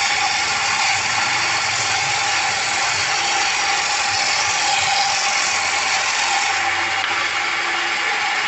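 Homemade table saw running steadily, its motor and blade making an even mechanical noise with a held tone.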